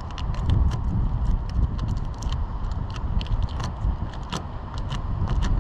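Wind buffeting the microphone in a low, uneven rumble, with scattered light clicks and taps throughout.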